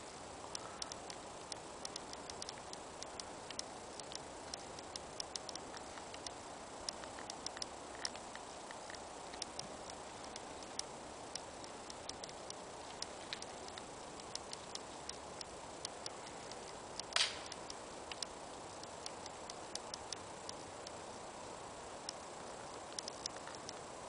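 Footsteps on gravel and dry leaf litter: faint, irregular small crunches and ticks over a steady low hiss, with one louder crunch about seventeen seconds in.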